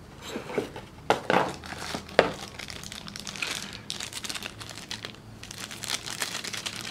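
A few light knocks of cardboard box parts being handled, then a plastic bag crinkling continuously as the remote control sealed inside it is turned over in the hands.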